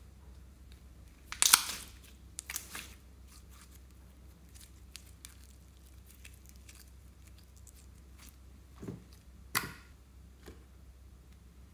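Glossy slime being stretched and squished by hand, giving a few short sharp bursts of sticky sound with small clicks between. The loudest burst comes about a second and a half in, with two more near the end.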